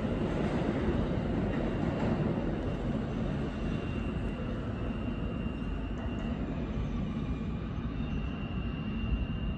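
New York City subway train running in the tunnel, heard as a steady distant rumble, with a faint thin high squeal, likely from the wheels, coming in for a couple of seconds near the middle and again near the end.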